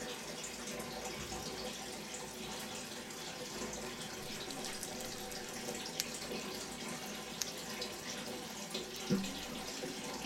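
A steady hiss of noise, like running water, with a few faint clicks and a short falling sound about nine seconds in.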